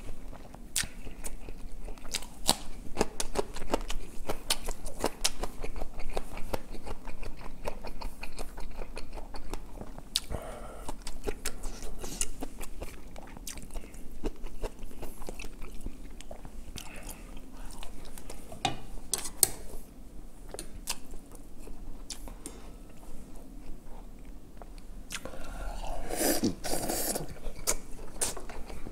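Close-miked chewing of braised kimchi with chunks of pork and a mouthful of rice: steady wet mouth smacks and clicks, with a louder stretch of mouth noise near the end.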